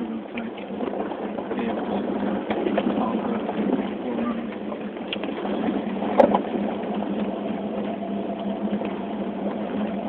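2005 Toyota 4Runner driving a dirt trail, heard from inside the cabin: steady engine and tyre noise on dirt and gravel with small rattles, and a sharp knock about six seconds in.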